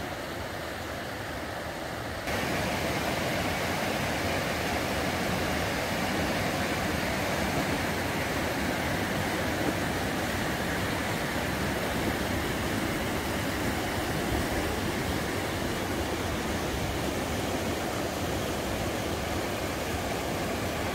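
River rapids rushing steadily, a dense even roar of white water. The sound gets louder and fuller about two seconds in, then holds.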